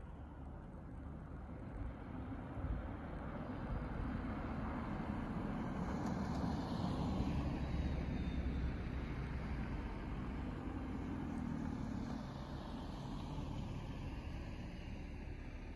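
A car driving past on a snow-packed road. The engine and tyre noise swells to its loudest about halfway through, then fades as it goes by.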